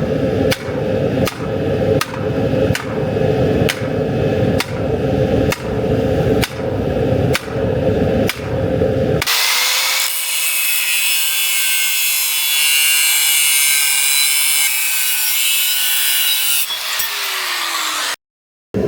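Rhythmic strokes of a hand tool working steel, a little over one stroke a second, for about nine seconds. Then a power tool runs with a high hiss and a steady hum, and its pitch falls as it winds down near the end.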